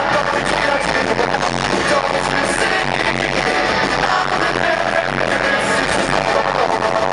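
Live rock band playing loud through an arena PA, recorded from the stands with heavy bass.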